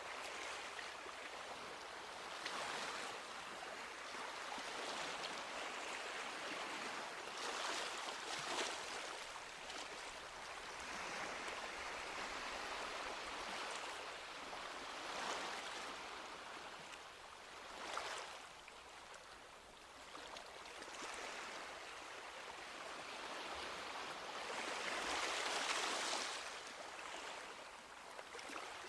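Small sea waves washing onto a beach, a steady hiss of water that swells and eases every few seconds, with the biggest surge near the end.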